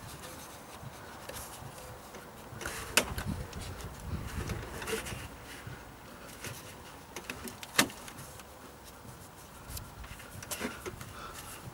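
Gloved hands working a ribbed auxiliary drive belt onto the engine's pulleys: rubbing and scraping of rubber and glove, with two sharp clicks about three and eight seconds in.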